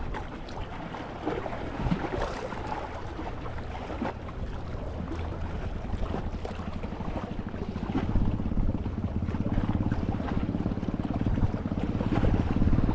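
Wind buffeting the microphone over a steady background of sea water. From about seven seconds in, a spinning reel is cranked to retrieve a soft-plastic lure after a pause, giving a steady rapid whirring that grows louder toward the end.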